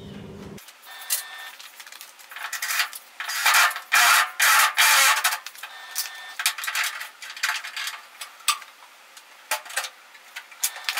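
Irregular bursts of workshop noise, metal clattering and scraping, that sound thin and high with no low end.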